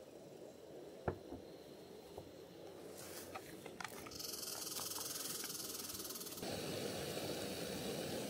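Gas camp stove being lit: a few igniter clicks, then a high hiss of gas, and about two-thirds of the way through the burner catches with a steady rushing flame.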